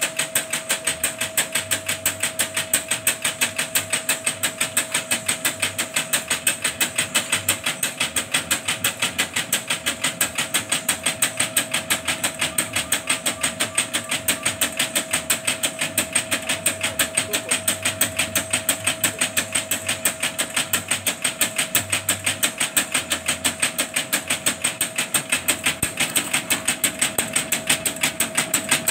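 Mechanical sieving machine (sifter) running, its shaking screen knocking in a fast, even rhythm over a steady motor hum.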